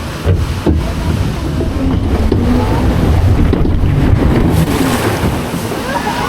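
Loud rushing noise with heavy low rumbling, like wind buffeting the camera microphone.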